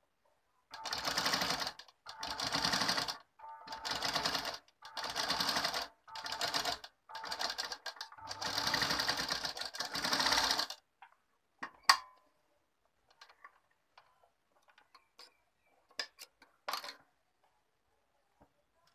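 Sewing machine stitching fabric in about eight short runs of roughly a second each, stopping briefly between runs as the seam is guided. After about eleven seconds the stitching stops, leaving quiet handling with one sharp click and a few faint taps near the end.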